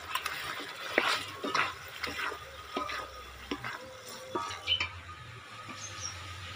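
A wooden spatula stirs pointed gourd pieces through a thick yogurt gravy in a metal kadai, giving irregular wet scrapes and light taps against the pan.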